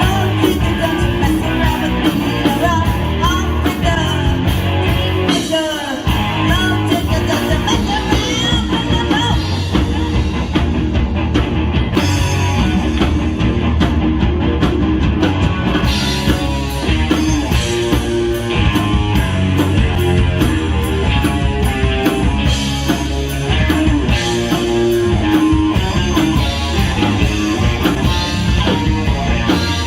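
Live rock band playing a song, with guitar and drums.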